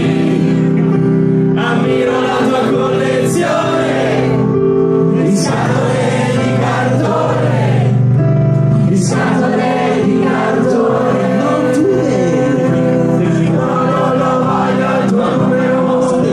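Loud live music with many voices singing together over sustained held chords, heard from within the audience.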